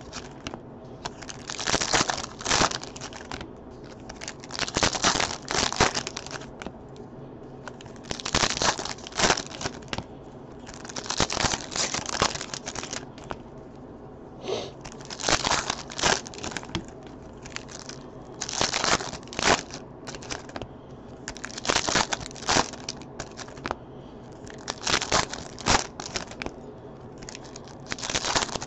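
Foil trading-card pack wrappers (2015 Topps Chrome football) being torn open and crumpled one after another, a short crinkly tearing burst about every three seconds.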